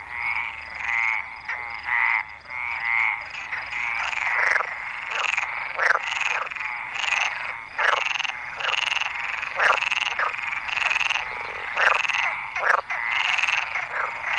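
Chorus of Iberian water frogs croaking: overlapping rasping calls repeating roughly every half second to a second. These are males calling with their vocal sacs inflated to attract females.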